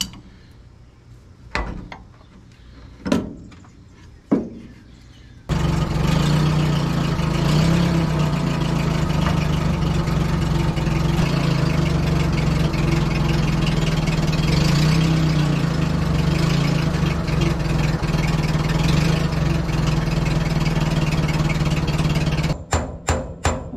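A few sharp metallic clanks from a wrench on the hoist cylinder's fittings, then a forklift engine starts and runs steadily, wavering a little as the forklift lifts the dump truck's hydraulic hoist cylinder. Percussive music with a regular clicking beat comes in near the end.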